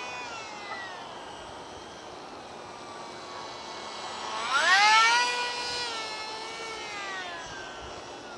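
Ultra-micro RC flying wing's tiny electric motor and propeller whining at a high pitch. The pitch drops in the first second, climbs steeply and gets loud about four seconds in as the plane passes close overhead, then slowly falls away.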